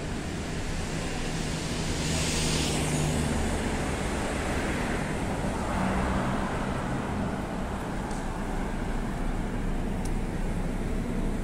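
Road traffic on a city street: cars passing with a steady engine hum and tyre noise, one swelling past about two seconds in and another around six seconds.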